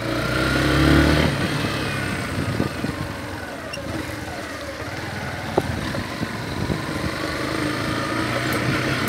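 Yamaha Factor 150's single-cylinder four-stroke engine running as the motorcycle rides slowly over a rough dirt street. It pulls harder in the first second, then runs steadily, with a single knock about halfway through.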